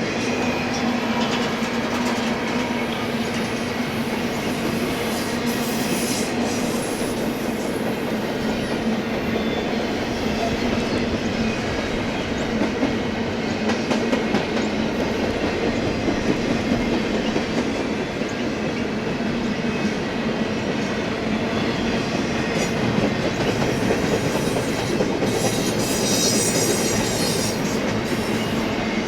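BNSF freight train rolling past, its wheels clicking steadily over the rails, with a steady low hum under the rumble.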